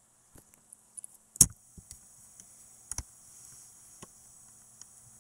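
A few sharp clicks or taps, the loudest about a second and a half in and another near three seconds, over a faint steady hum and hiss.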